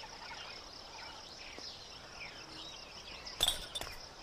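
Soundtrack nature ambience: a steady drone of insects with scattered short bird chirps. About three and a half seconds in, a brief cluster of sharp knocks.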